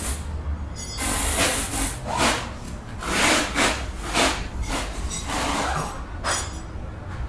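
Wire brush scrubbing grime and rust off a truck's front wheel hub in a series of irregular scraping strokes.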